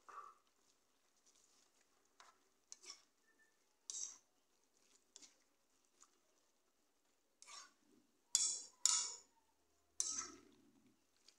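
A metal spatula scraping and knocking against a metal pan as noodles, pork and cabbage are stirred and tossed. It comes in separate short strokes, a second or so apart, with the loudest ones bunched about two-thirds of the way through.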